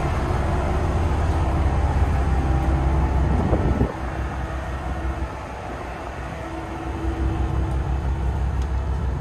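Sightseeing boat's engine running, a steady low rumble that drops in level about four seconds in and builds again a couple of seconds later.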